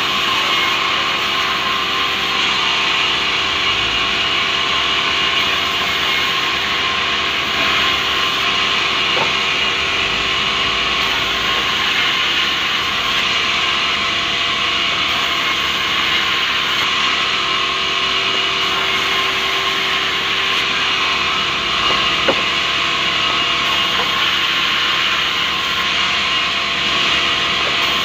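Sawmill band saw running and cutting rubberwood planks: a loud, steady rasp of the blade through the wood over the machine's hum. One sharp knock comes about three quarters of the way through.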